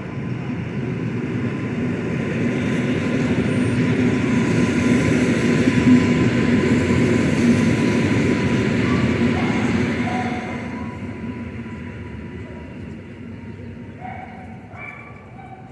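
Passenger train running past along the platform. Its rumble builds to a peak about halfway through and fades away over the last few seconds, with a thin steady whine running through it.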